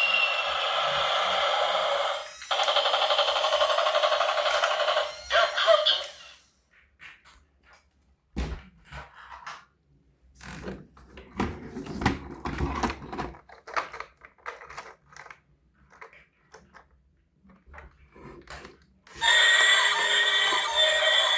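A toy vehicle's electronic sound effect, a loud shrill ringing that stops about six seconds in, followed by scattered clicks and knocks of toys being handled, before another loud electronic sound starts near the end.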